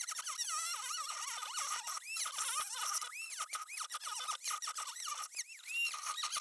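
A small DC-motor-driven mini table saw's 4-inch blade cutting a board, giving a high squealing whine that keeps swooping up and down in pitch as the blade slows and recovers under the feed.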